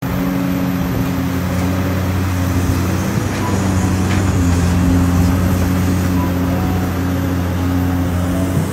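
Crawler bulldozer's diesel engine running steadily as it pushes sand, a low even drone that holds one pitch.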